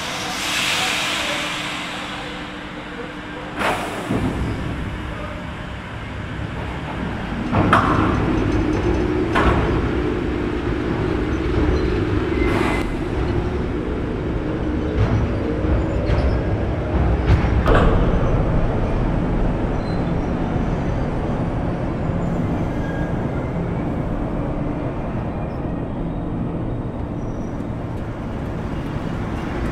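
Rhaetian Railway Ge 6/6 II electric locomotive at the depot turntable. A burst of air hiss at the start, then several sharp metallic clanks, and from about eight seconds in a steady low running hum with a tone that slowly rises and falls.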